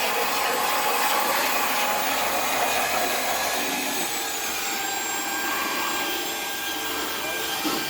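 Electric power sander running steadily against wood siding, a continuous whirring hiss with a faint motor whine, easing off slightly near the end.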